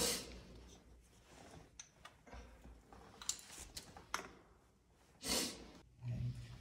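Quiet handling noises as a small plastic geocache tube, its cap and rolled log paper are handled: short rustling bursts near the start and about five seconds in, with a few light clicks between.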